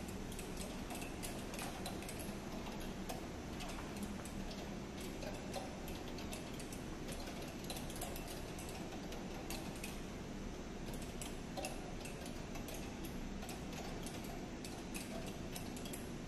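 Many irregular clicks from the relays of dozens of motion-sensor LED floodlights switching on and off, scattered unevenly over a steady low hum.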